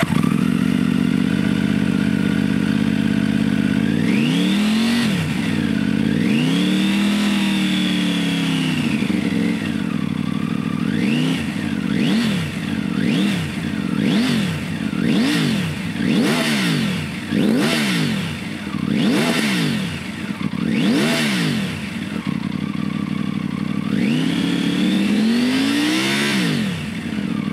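Triumph Tiger 900's three-cylinder engine, warm, running through a Scorpion Serket slip-on exhaust with its baffle removed. It idles, then is revved: one short rev, a longer held rev, a run of about ten quick throttle blips roughly a second apart, then idle again and a last rev near the end.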